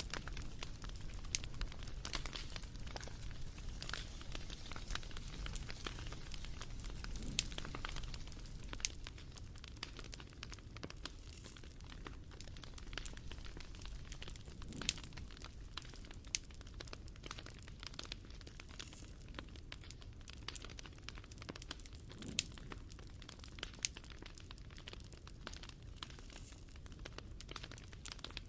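Wood fire crackling: a soft steady hiss full of small quick crackles, with a sharper pop every few seconds.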